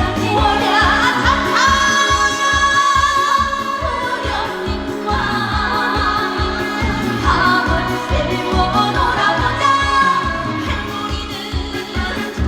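Live trot song over a loud amplified backing track with a steady beat, a woman singing the melody.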